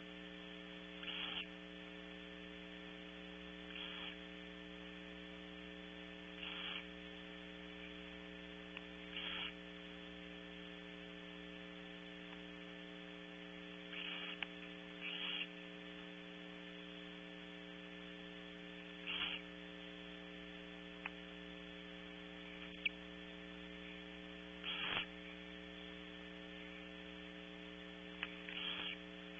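Barn owls in a nest box giving short hissing calls every few seconds, over a steady electrical hum from the nest-box camera system.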